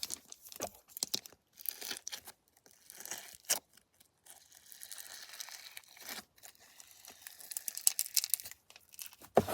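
Peachybbies 'Baby Axolotl' slime being squished and stretched by hand, giving many small crackling pops and clicks that come thickest near the end.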